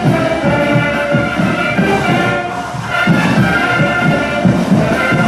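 Band music with a steady drum beat under long held chords.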